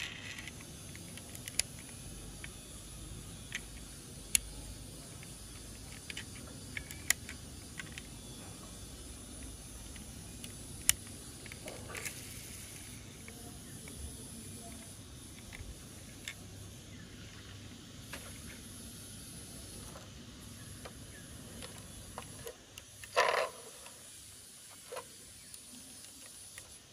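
A small die-cast metal toy car being handled: scattered sharp clicks every second or few over a steady faint hiss, with one louder brief scrape near the end.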